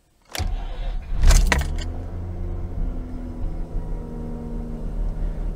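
Mazda RX-8's new uprated N3Z1 starter motor cranks the twin-rotor Renesis rotary engine on a cold start. The engine catches after about a second with a brief loud flare, then settles into a steady fast idle at about 2,000 rpm. Heard from inside the cabin.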